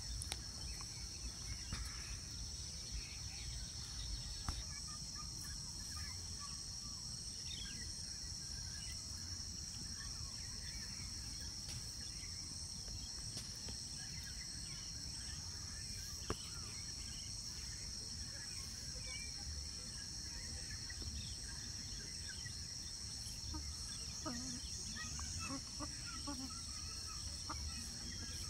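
Steady high-pitched drone of an insect chorus over a low rumble, with a few faint chicken calls near the end.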